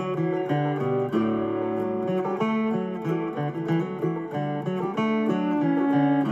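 Background music: an acoustic guitar plucking and strumming a melody in a steady rhythm.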